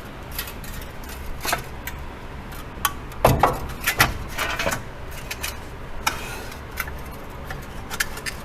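Metal parts clicking and clinking as a wheel-hub dust shield and hub bearing assembly are handled and fitted onto a truck's front steering knuckle, with two louder knocks about three and four seconds in.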